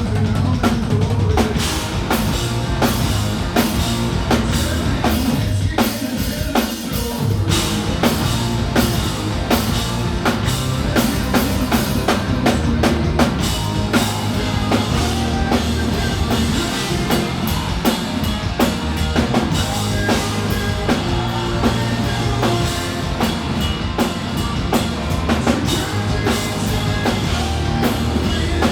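Hard rock band playing live at full volume, with a driving drum kit of kick and snare carrying a dense beat under the bass and guitars.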